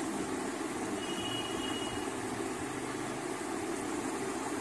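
Steady background hum with no distinct events, with a faint high tone about a second in.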